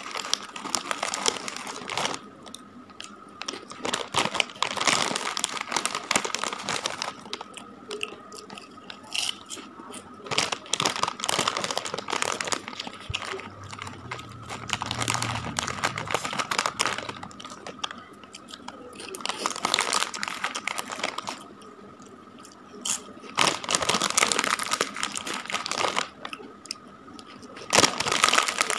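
Plastic snack packet crinkling as hands work inside it, mixed with crunchy snack being bitten and chewed close to the microphone, in irregular bursts.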